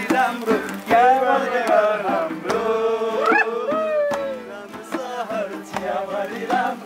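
People singing together to music, with a strummed guitar and sharp taps keeping the beat.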